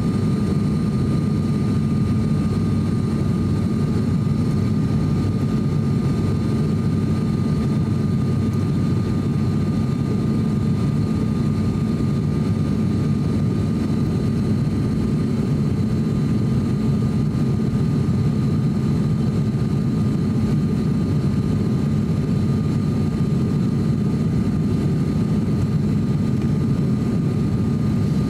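Cabin noise inside an ATR 42-600 turboprop airliner on approach: a loud, steady, low drone from its Pratt & Whitney PW127 engines and propellers, with a thin steady whine above it.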